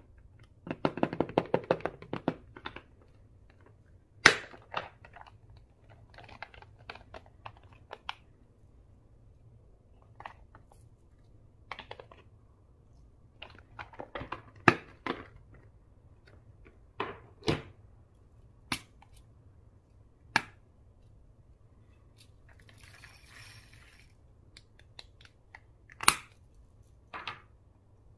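Slime being mixed, giving a fast run of clicks and pops about a second in, then single sharp pops and clicks every second or two.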